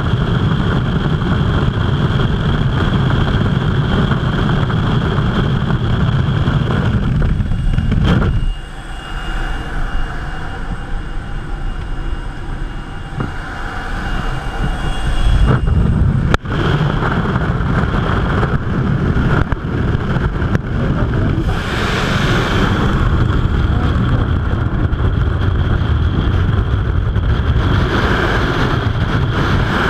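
Freefall airflow rushing over a skydiver's camera microphone: a loud, steady wind noise that turns quieter and thinner for several seconds about a third of the way in, then comes back full, with one sharp click around the middle.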